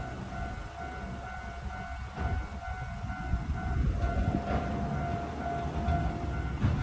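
Japanese railroad crossing warning alarm sounding its steady "kan-kan" tone. From about two seconds in, the low rumble of an approaching train grows louder beneath it.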